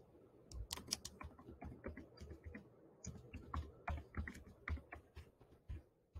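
Computer keyboard being typed on: a quiet, irregular run of key clicks, with a brief pause about halfway through, as a short sentence is typed.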